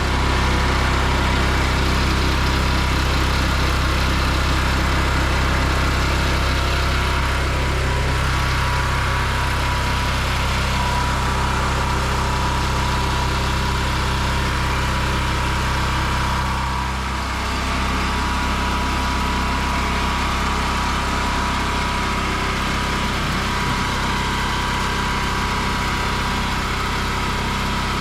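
Engine of a pressure-washing rig running steadily; its note dips and shifts briefly a little past halfway through.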